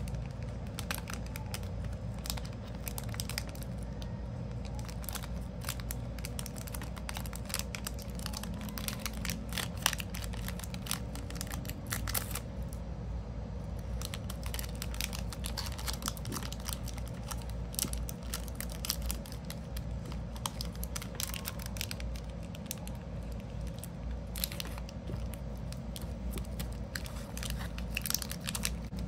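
Clear plastic packaging bag crinkling and crackling as a soap bar is handled, slipped in and the bag folded, in many quick irregular bursts over a steady low hum.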